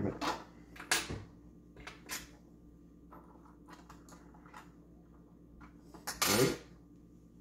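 Small hard clinks and knocks of metal gantry parts and loose screws handled on a glass table top. There are several sharp clicks in the first couple of seconds, then only a few faint ticks.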